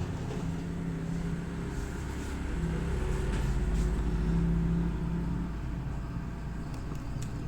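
A low vehicle engine rumble with a steady hum, growing louder a few seconds in and easing off again.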